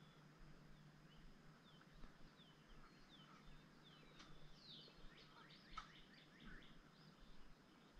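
Faint birdsong: a scatter of short, high chirps sliding downward in pitch, most frequent around the middle, over near-silent background.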